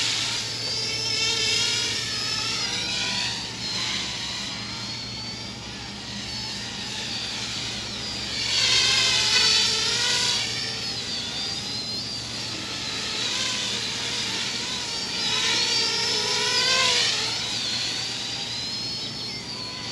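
Parrot Bebop 2 quadcopter drone in flight, being flown hard. Its propellers give a high whine that rises and falls in pitch as it manoeuvres, swelling louder three times as it comes close.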